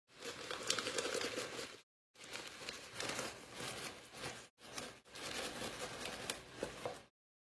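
Dry Jiffy cornbread mix being shaken out of its paper pouch into a mixing bowl, the paper crinkling and the powder pattering in, in three stretches with short gaps between them.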